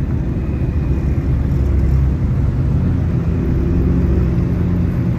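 Car engine running at low speed: a steady low rumble with a held hum and no sudden changes.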